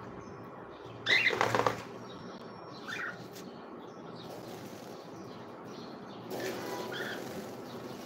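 Caged parrots, their feathers wet from a shower: a short, loud flurry of wing flapping about a second in, then a few short chirps.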